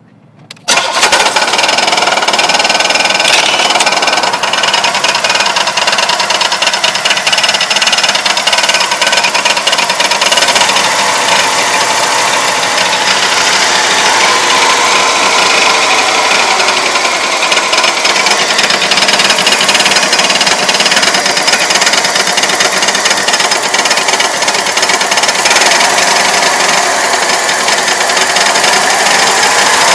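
Pontiac Grand Am's 3.3-litre V6 running with a loud knock and rattle, coming in suddenly about a second in and rising and falling a little in speed at times. The knock follows driving with the oil very low; with the main and rod bearings already replaced, the owner suspects the cam bearings.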